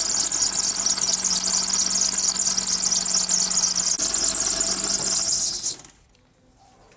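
Car's wet alternator drive belt squealing loudly and steadily on its pulleys with the engine running, a high-pitched squeal over a low engine hum; the squeal is caused by water on the belt. Near the end the engine is switched off and the squeal cuts off suddenly.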